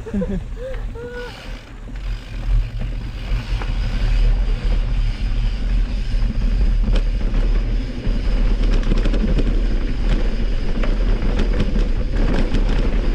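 Mountain bike ridden down a trail: wind rumbling on the rider's camera microphone and tyres rolling over the dirt. It gets louder about four seconds in, and rapid clicks and rattles of the bike over rough ground become thicker in the second half.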